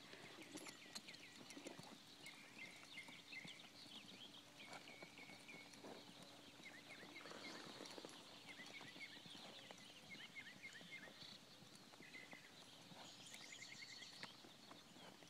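Faint hoofbeats of a horse being ridden at a steady pace, with faint high chirping calls scattered through.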